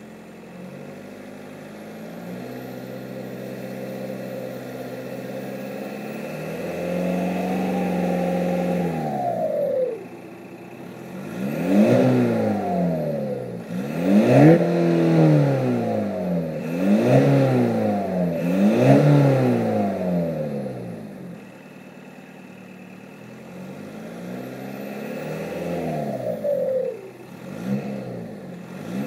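Remapped Seat Ibiza Cupra TDI's turbodiesel engine, breathing through a Milltek full exhaust, being revved. A slow climb is held for a couple of seconds and dropped about ten seconds in, then comes a string of about five quick blips, and one more rise near the end. A faint turbo whistle sits over the engine note.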